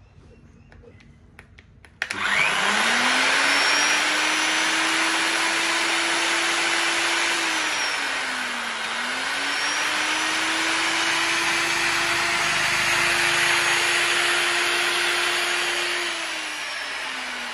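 Large 2300 W angle grinder switched on and free-running: it starts about two seconds in and spins up to a steady high whine, sags in pitch once midway and picks up again, then starts spinning down near the end as the switch is let go.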